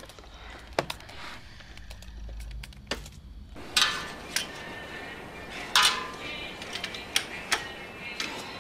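Metal tools clinking against a car engine while someone works under the bonnet: a series of sharp, ringing metallic clinks over a steady background hiss. The first few seconds are quieter, with only a few faint clicks.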